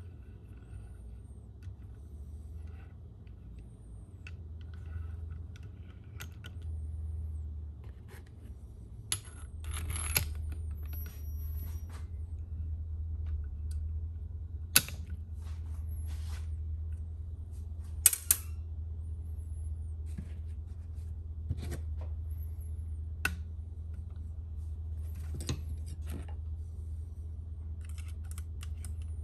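Scattered light metallic clicks and clinks from a lever-type valve spring compressor working on a cylinder head, as valve springs are pressed down and the valve keepers are picked out; a few sharper clinks come midway. A steady low hum runs underneath.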